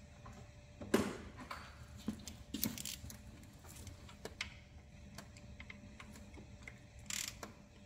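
Scattered metallic clicks and clinks of hand tools on engine parts as the Allen-key bolts of the timing chain guides are undone, with a sharper knock about a second in and a short scrape near the end.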